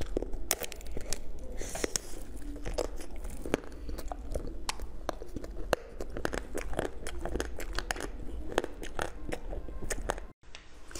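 Close-miked biting and chewing of a crisp-shelled, pine-cone-shaped filled sweet: a rapid, irregular run of sharp crunches and cracks.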